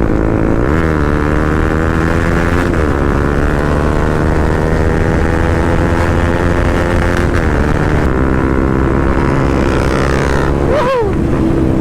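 Motorcycle engine pulling through the gears. The pitch climbs steadily and dips abruptly at each shift, three times, then rises sharply and falls away near the end.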